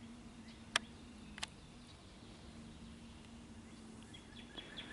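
Quiet outdoor ambience with a faint steady low hum. There are two sharp clicks in the first second and a half. From about four seconds in comes a rapid, even run of high chirps, about six a second.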